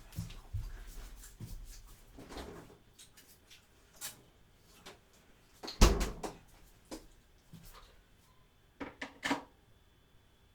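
Tableware handled at a meal: scattered knocks and clicks of dishes, utensils or a container, the loudest about six seconds in and two more close together near nine seconds.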